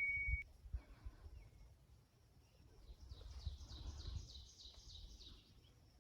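A songbird singing a trill of quick, repeated high downslurred notes, about four a second, starting about three seconds in and lasting a couple of seconds, over a faint low rumble. At the very start, the last ring of a chime-like ding fades out.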